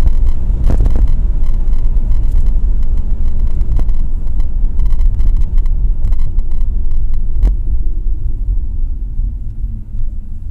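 Car driving, heard from inside the cabin: a loud, steady low rumble of engine and road that eases off near the end as the car slows in traffic.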